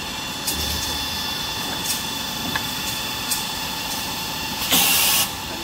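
Kitchen-towel and toilet-paper rewinding machine running: a steady mechanical hum with a thin high whine, a few light clicks, and a short, loud hiss lasting about half a second near the end.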